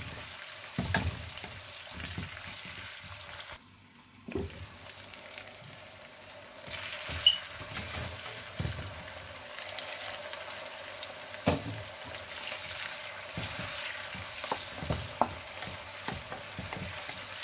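Sliced red and white onions sizzling in hot oil in a wok, stirred with a wooden spatula that knocks against the pan now and then.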